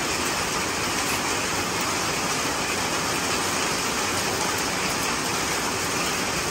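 Steady rain falling on wet ground, mixed with water splashing onto concrete as it pours off a person bathing in it.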